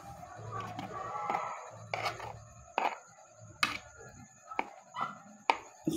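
Metal spoon clinking and scraping against a plate while scooping rice: a series of about six sharp clicks, irregularly spaced, from about two seconds in.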